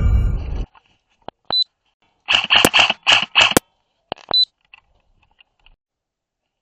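An airsoft gun firing a quick string of about five shots, with a few single clicks before and after.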